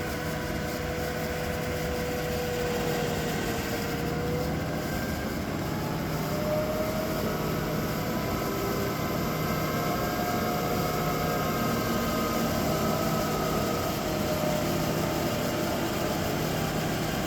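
Chevalier FM-3VKH vertical mill's spindle running steadily: an even motor hum with a few faint whining tones that drift slightly in pitch.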